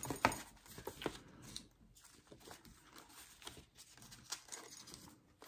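Rustling and light clicks of packaging being handled: a small plastic parts bag and a glossy paper card. Irregular, with the sharpest click just after the start.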